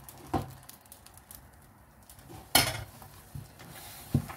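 Three short knocks of a spoon against a steel cooking pot while tomato stew is added to thick corn pap. The loudest comes about halfway through, with quiet between.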